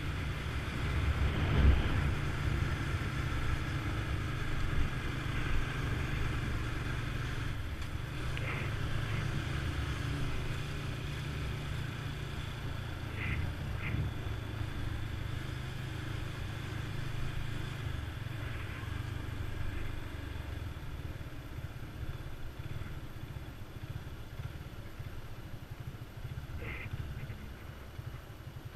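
Motorcycle engine running steadily while riding, with a low continuous rumble. A few brief high chirps are heard at scattered moments.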